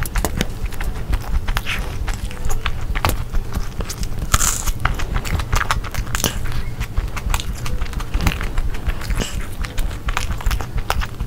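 Close-miked mukbang eating: a person biting and chewing big mouthfuls of food, with many quick wet clicks and smacks.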